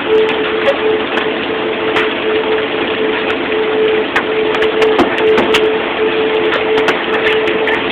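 Hailstorm downpour: a dense roar of hail and rain with many sharp clicks of hailstones striking hard surfaces, over a steady hum.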